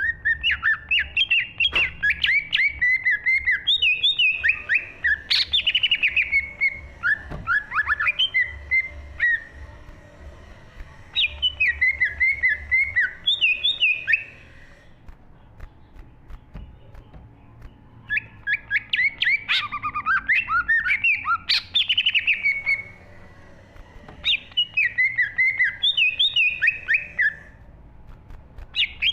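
Cucak ijo (green leafbird) singing: bursts of rapid, varied whistled and chattering notes with quick pitch sweeps, several seconds long, broken by short pauses.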